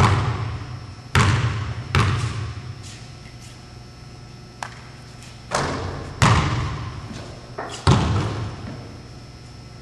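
A basketball bouncing on a hardwood gym floor, each bounce ringing out in the echoing hall: three dribbles in the first two seconds, a pause while the shot is in the air, then three or four more bounces between about five and eight seconds in.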